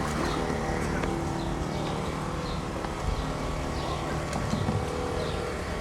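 A steady mechanical hum with a few faint ambient noises over it.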